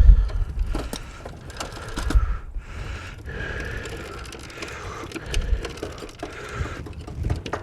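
Irregular metal clicks and knocks as a snowblower axle, wheel and drive chain are shifted and worked into line by hand.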